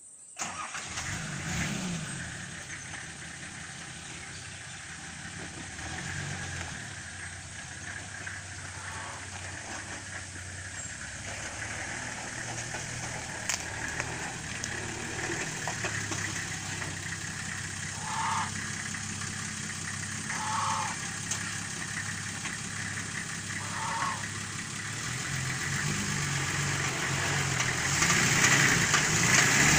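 Nissan Patrol 4x4's engine starting, then running at low speed as the vehicle is manoeuvred on a steep, slippery dirt slope, getting louder near the end as it climbs. Three short high notes sound around the middle.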